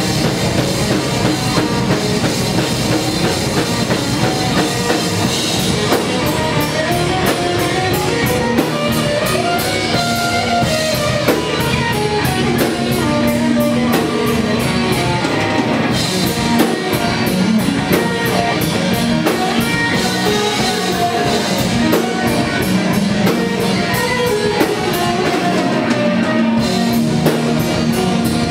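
Live rock band playing loudly: electric guitar over a drum kit, with a fast, even beat from about six seconds in.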